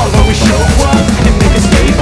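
Background music with drums.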